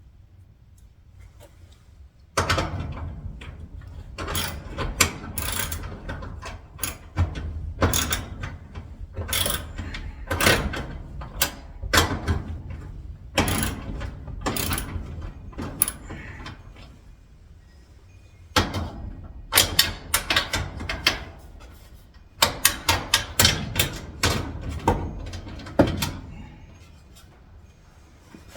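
Irregular metallic clicks, clanks and rattles of hand work on garage door lock hardware. They start a couple of seconds in, pause briefly in the middle, then go on again.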